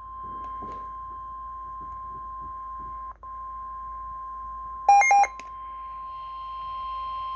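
NOAA Weather Radio 1050 Hz warning alarm tone, one steady high tone over radio hiss, received on a Midland WR-120 weather radio: the signal that a warning, here a severe thunderstorm warning, is about to be read. The tone drops out for an instant about three seconds in, and about five seconds in three short, loud, higher beeps sound over it.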